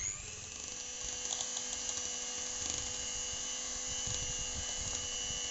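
Electric hand mixer running steadily, its twin beaters whipping strained yogurt (chakka) and sugar in a steel bowl. The motor's whine has just spun up and settles within the first moment, then holds at an even pitch.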